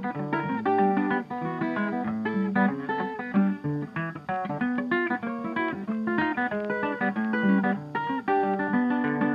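Background music: an acoustic guitar picking a quick run of short plucked notes over a lower bass line.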